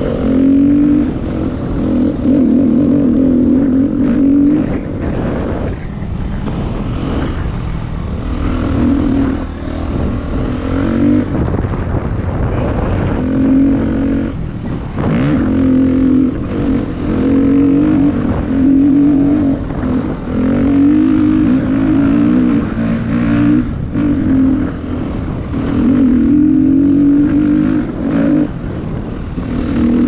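Husqvarna dirt bike engine heard from the rider's helmet, its note surging under throttle and easing off again and again, with short lulls between the surges, over a constant rush of wind and trail noise.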